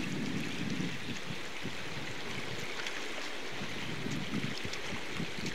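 River water rushing steadily over rocks in a shallow, riffled run.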